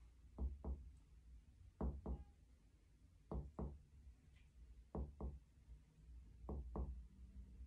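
Finger-on-finger chest percussion on a patient's right chest: five double taps, roughly one pair every second and a half, moving down the chest to find the lower border of the right lung, where the resonant lung note turns dull.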